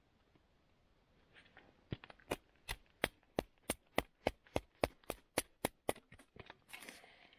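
A knife being batoned down into a small frozen willow block: about fifteen sharp, evenly spaced knocks on the blade's spine, about three a second, with the frozen wood not splitting readily. A brief scraping rustle follows near the end.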